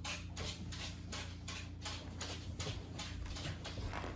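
Faint, even clicking, about three to four clicks a second.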